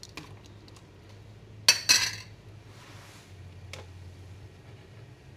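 A metal spoon clinks sharply twice against metal cookware, about a quarter second apart, each ringing briefly, then one lighter click a couple of seconds later, over a low steady hum.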